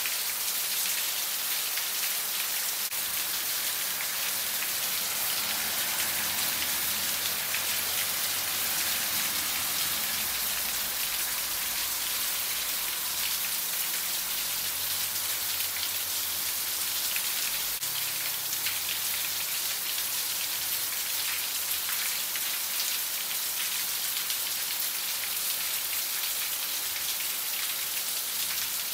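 Heavy rain pouring steadily onto a paved road and leafy shrubs: a dense, even hiss of falling drops.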